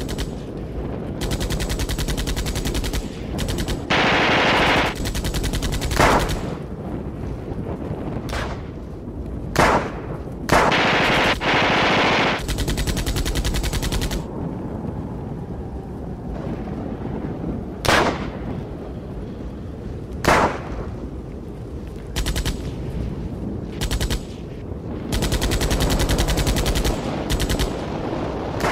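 Blank-firing mock battle: long rapid bursts of machine-gun fire lasting a few seconds each, with single rifle shots cracking out every few seconds between the bursts.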